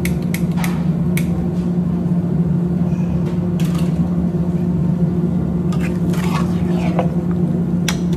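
A steady low hum from the kitchen runs throughout, with a few light clicks early on. About six seconds in, a metal spatula starts scraping and clinking in a frying pan, stirring raw beef with onions and tomatoes.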